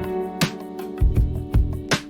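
Background music: held instrument tones with several drum hits.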